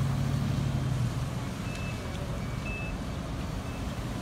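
A vehicle engine drones steadily and drops away about a second in, leaving a broad rushing noise. A few short high beeps sound near the middle.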